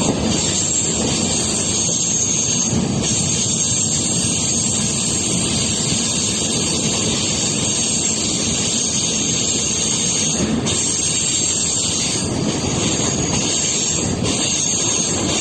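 Train running along the track: a steady rumble with a high hiss over it, unbroken throughout.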